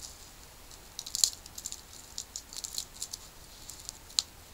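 Small wood campfire crackling: irregular sharp pops and ticks over a soft hiss, with two louder pops, about a second in and near the end.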